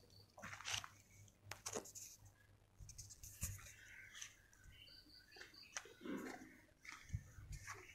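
Faint rustling and crackling of leaves, stems and twigs brushing past as someone walks through dense undergrowth, in irregular short clicks, with a few brief high chirps about halfway through.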